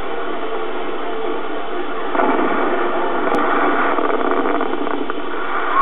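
Fireworks display: a steady crackling hiss that swells about two seconds in, with a falling whistle starting right at the end.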